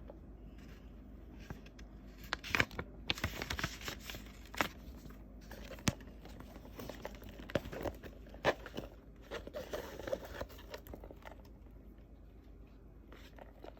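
Paper rustling and crinkling with scattered light clicks and taps, as a handbag and its paper certificate are handled.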